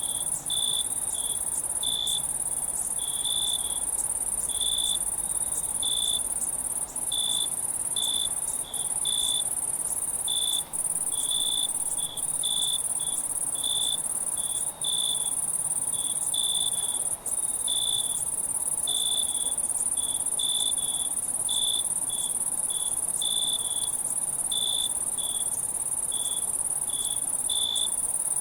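Night insect chorus: a steady, very high-pitched trill with short, lower cricket chirps over it, one or two a second at uneven spacing. The high trill breaks off for an instant several times.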